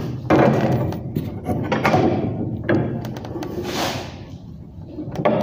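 Steel reinforcing bar being worked by hand on a bench: a series of knocks and scrapes of metal, roughly once a second.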